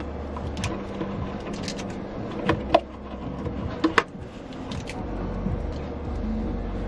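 Unboxing handling sounds: a cardboard watch box and its insert rustling as a resin-strapped watch is pulled free, with a few sharp clicks and taps, the loudest about two and a half to four seconds in.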